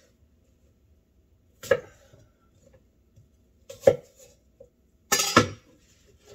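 Knife cutting fruit on a wooden cutting board: three sharp knocks of the blade on the board about two seconds apart, the last a quick double.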